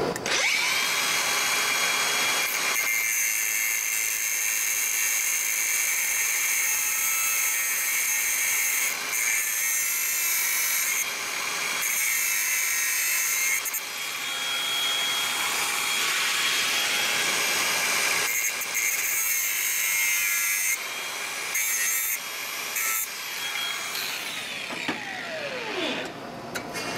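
Makita angle grinder spinning up, then running with a steady high whine while grinding steel, the grinding noise swelling and easing as the disc bites. Near the end the motor is switched off and winds down with a falling pitch.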